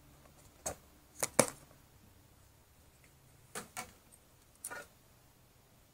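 Clear plastic enclosure lid clicking as it is unclipped and lifted off the tub, with a few sharp clicks and taps: a cluster about a second in, the loudest near a second and a half, then three more around four to five seconds in.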